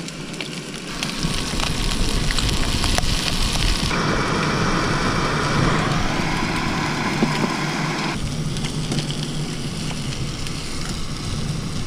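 Butane canister camp stove burning under a pan of turkey and potatoes: a steady hiss of flame and frying. A louder stretch of noise runs in the middle, from about four to eight seconds in.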